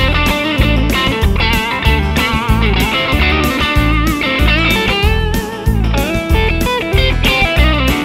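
Fender Telecaster with Tonerider Hot Classics Alnico 3 pickups playing a lead line through an Ibanez Tube Screamer overdrive, in quick notes with bends and vibrato.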